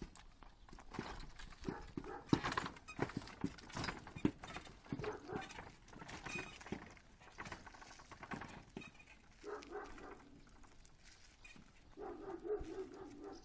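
A horse's hooves clip-clopping at a walk on a paved road as it pulls a wooden cart, with many irregular short knocks.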